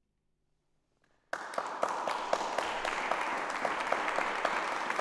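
About a second of near silence, then a small audience suddenly breaks into applause, many individual claps, and keeps clapping steadily.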